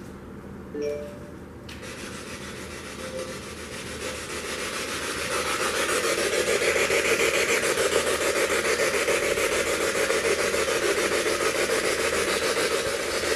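Spirit box scanning rapidly through radio stations, giving a choppy hiss of radio static. The static comes in about two seconds in and grows louder over the next few seconds, then holds steady; a few short tones sound about a second in, just before it.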